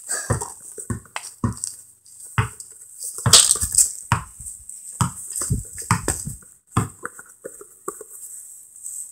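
Irregular knocks and thumps of handling and movement on concrete, at times two or three a second, with a steady high hiss underneath.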